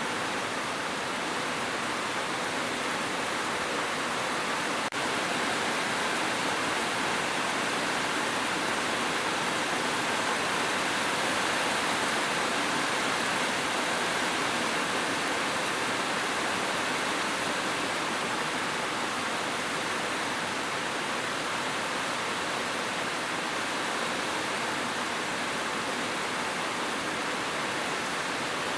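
Steady rain falling, an even hiss of water without a break. A single faint click about five seconds in.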